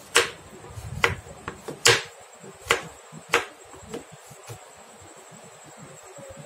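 A knife chopping a dark chocolate bar on a cutting board: sharp knocks as the blade cuts through onto the board, roughly one a second. They get fewer and fainter after about four seconds.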